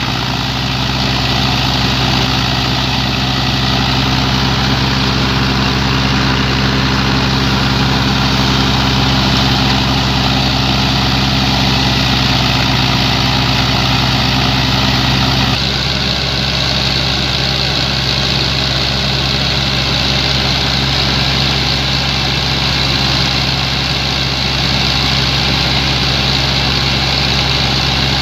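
New Holland Ghazi 65 hp tractor engine running steadily under heavy load, powering a threshing machine whose drum and fan add a dense, even whirring. The sound shifts abruptly about halfway through.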